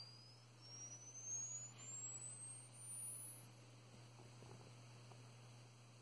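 Faint pure sine-wave test tone sweeping upward, a very high whistle climbing steadily in pitch until it passes out of hearing about five seconds in. A low steady hum runs underneath.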